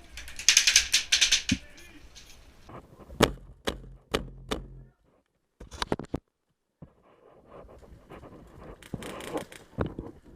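HPA-powered airsoft rifle firing a rapid burst of shots, followed by several single sharp shots or knocks and another short run of shots near the end.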